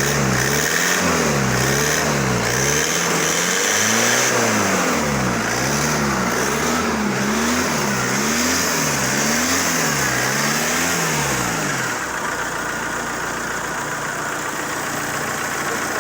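ZMZ-514 four-cylinder turbodiesel engine revved up and down repeatedly, about once a second, then settling to a steady idle about twelve seconds in. It is running after the repair, which the owner judges as it should, the knock having been traced to a piston.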